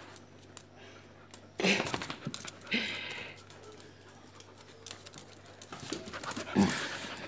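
A dog panting, with a few short scuffing noises and one louder knock near the end.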